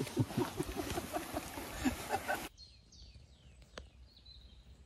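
Low talking that cuts off suddenly about two and a half seconds in, followed by small birds chirping: a few quick descending chirps, then a thin held high note, with a single click in between.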